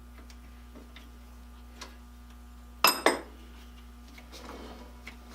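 Two sharp clinks in quick succession about three seconds in, the first ringing briefly like metal, over a steady low hum with a few faint ticks.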